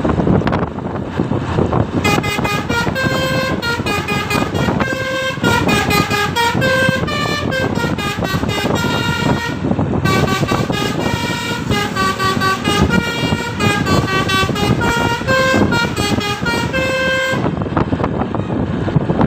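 Bus telolet horn, a Basuri-type multi-tone air horn, playing a quick melody of changing notes. It starts about two seconds in, breaks off briefly near the middle, and plays again until near the end, over steady vehicle noise.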